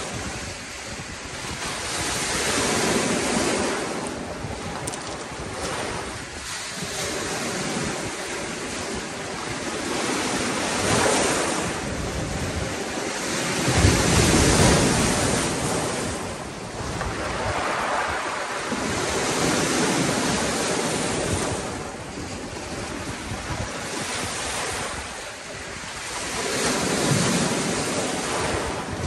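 Lake waves surging in and breaking on a pebble shore and against a rock, in repeated swells every few seconds, with the biggest crash about halfway through.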